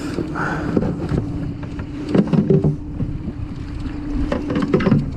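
A boat motor idling with a steady hum, with wind on the microphone. A plastic cooler lid is lifted off, handled and set back, giving a few hollow knocks and rattles about two seconds in and again near the end.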